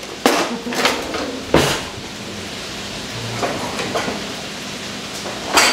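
Metal utensils clattering as a kitchen utensil drawer is rummaged through, with a few sharp clinks in the first two seconds. Then a dishwasher is opened and its rack pulled out, with a loud clatter near the end.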